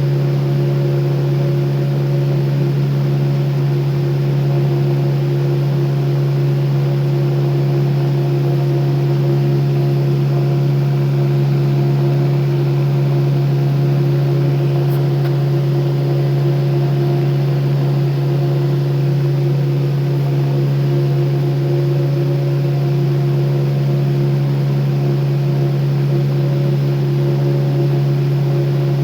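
Electric fan running steadily: a strong low motor hum with several fainter steady higher tones over an even rush of air, unchanging throughout.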